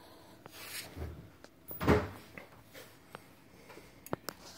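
Light clicks and a dull knock of hands and metal tools working at a brake caliper's pad-retaining pins, with a louder knock just under two seconds in and two sharp clicks near the end.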